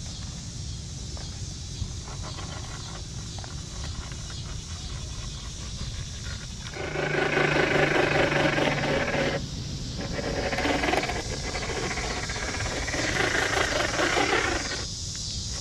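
Electric motor and gear drivetrain of an RC scale crawler truck whirring as it drives, in two spells: from about seven seconds in to about nine and a half, then again from about ten seconds until near the end, over a steady low rumble.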